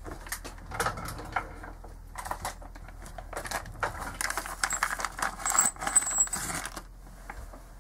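Small metal objects clinking and rattling in several short clusters, as when loose tools and parts are rummaged through and handled, with a brief high metallic ring about five and a half seconds in.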